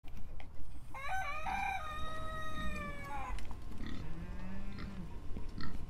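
A rooster crowing once: a long call that steps up and then holds and falls away, followed about four seconds in by a shorter, lower call.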